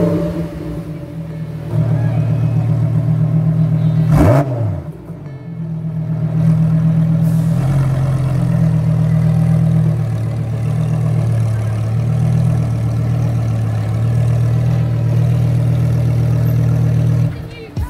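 Lamborghini Huracán Evo's V10 idling just after start-up, with one quick throttle blip about four seconds in; the idle settles a little lower about eight seconds in.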